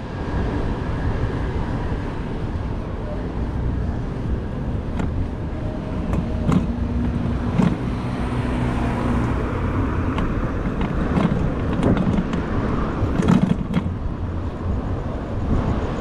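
City street traffic heard from a moving bicycle, with wind on the microphone, a steady hum for a few seconds midway, and scattered short knocks and rattles.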